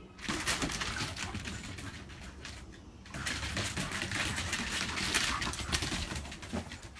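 Two dogs play-fighting and chasing on a wooden deck: paws and claws scrabbling on the boards, with low play growling. It comes in two bouts, with a short lull about three seconds in.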